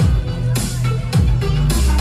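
Electronic music with a heavy beat, its deep bass notes sliding down in pitch again and again.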